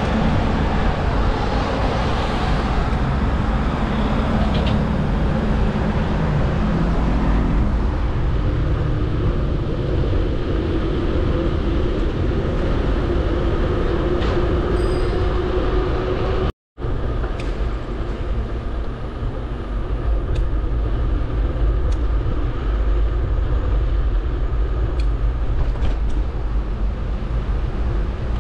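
Steady rush of wind and road noise on the microphone of a GoPro Hero9 Black carried on a moving bicycle, with passing motor traffic adding a low engine hum in the first half. The sound cuts out completely for an instant about two-thirds of the way through.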